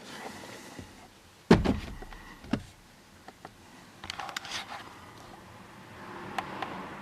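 A loud thump about one and a half seconds in, a smaller knock a second later, then a few light clicks and rattles.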